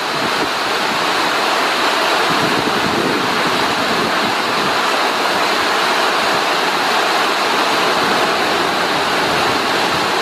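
Extremely heavy rain pouring down, a loud, steady hiss.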